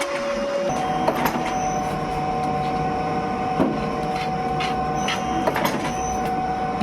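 Soap-factory machinery running with a steady whine that jumps to a higher pitch under a second in, with scattered clicks and knocks.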